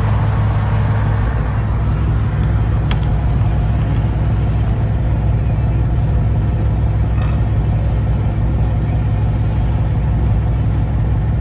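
Semi truck's diesel engine running steadily, heard from inside the cab, a constant low hum with road noise as the truck rolls slowly in traffic.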